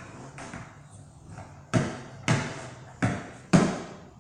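Skateboard knocking down onto a plywood ramp floor as it is lifted by hand and set down while being pivoted: four sharp knocks in the second half, each ringing briefly in the hollow plywood, after a fainter one near the start.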